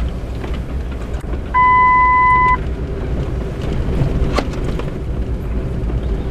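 Truck driving on a dirt and gravel road, heard from inside the cab: a steady low rumble of engine and tyres. About one and a half seconds in, a steady electronic beep sounds for about a second, the loudest thing heard, and a sharp click comes a little past the middle.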